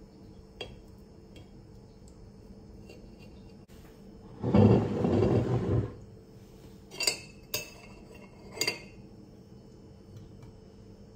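A ceramic bowl scraping across a countertop for about a second and a half, then metal cutlery clinking against ceramic dishes three times with a short ring.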